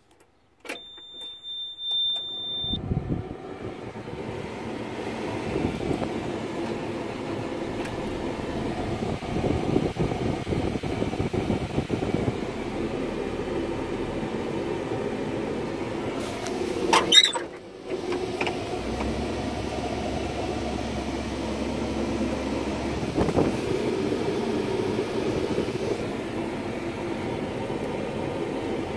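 Komatsu PC138US-8 excavator's diesel engine starting: a click and a steady high beep for about two seconds, then the engine cranks, catches and settles into a steady idle. A brief loud burst about 17 seconds in.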